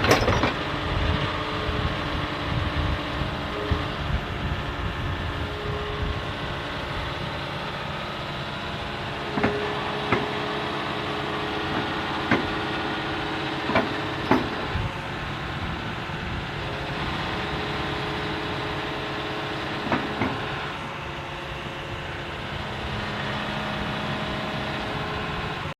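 Excavator engine running steadily, with a handful of short sharp knocks scattered through the middle stretch.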